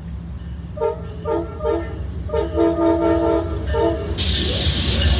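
Amtrak GE Genesis diesel locomotive's air horn sounding a few short blasts and then one long blast as it approaches, over the low rumble of its diesel engine. About four seconds in, the loud rush of the locomotive and train passing close by takes over.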